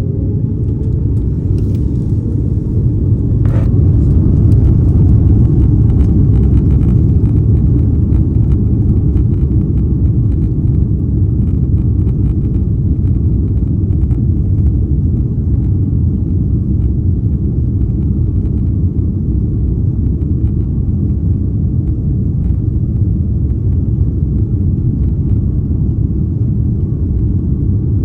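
Loud, steady low rumble in the cabin of an Airbus A330neo, its jet engines at high power and the wheels rolling on the runway, building over the first few seconds as on a takeoff roll. A short click sounds about three and a half seconds in.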